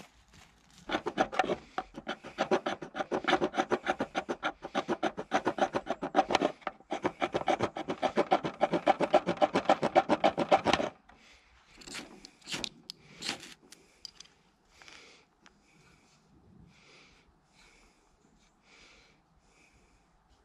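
Fast, rhythmic rasping strokes that keep going for about ten seconds and stop abruptly, followed by a few scattered knocks and clicks.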